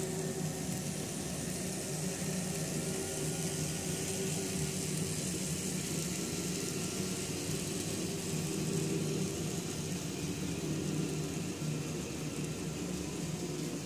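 Model train running past: its locomotives' electric motors whirring and the wheels rolling on the track, a steady hum with a hiss on top.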